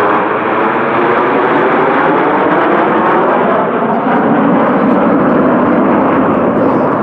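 Turbojet engines of a formation of Aermacchi MB-339 PAN jet trainers passing overhead: a loud, steady rushing noise with slowly shifting tones, dropping off right at the end.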